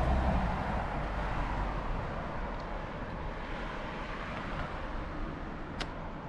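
Road traffic: a vehicle passing close by, its low rumble dropping away about half a second in and its noise fading slowly into a steady traffic hiss, with one sharp click near the end.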